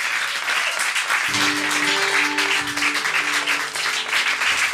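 Audience applauding, with an acoustic guitar sounding a few ringing notes under the clapping from about a second in.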